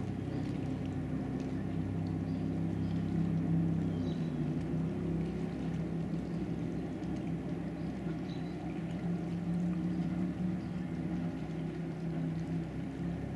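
Engine of a tower-equipped sport boat running at speed some way off across the water: a steady drone whose pitch shifts a little as the boat turns.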